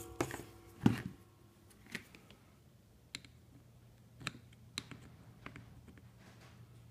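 Handling clicks and light knocks of metal tools on a workbench as a soldering iron is brought to a PL-259 connector clamped in a small plastic vise: a couple of sharper knocks within the first second, then scattered faint ticks.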